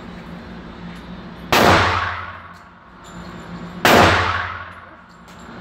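Two loud pistol shots about two and a half seconds apart, the first about one and a half seconds in, each echoing and dying away over about a second in the enclosed indoor range.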